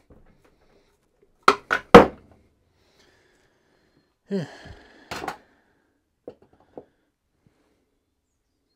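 Metal engine parts and tools being handled: three quick knocks about a second and a half in, the last the loudest, then a short scrape and another clunk, and two light clicks near the end.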